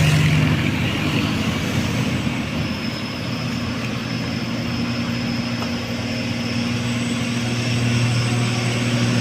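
Heavy diesel truck engine running under load on a steep climb, a steady low drone with no horn.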